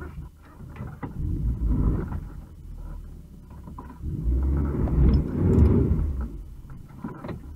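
Jeep Grand Cherokee driving up a stony, leaf-covered track: engine running and tyres rolling over stones, a low rumble that swells twice and is loudest about five to six seconds in, as the SUV comes closest and turns.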